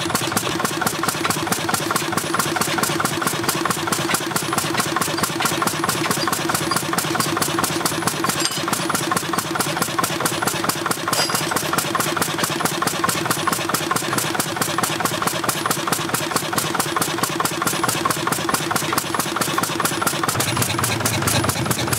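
An old stationary engine running steadily, with a rapid, even beat.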